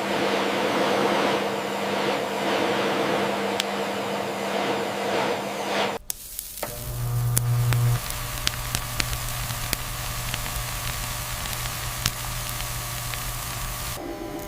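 Steady workshop machine noise: a hissing, spray-like noise over a steady hum. About six seconds in it cuts off abruptly and is replaced by a lower steady hum with scattered sharp clicks.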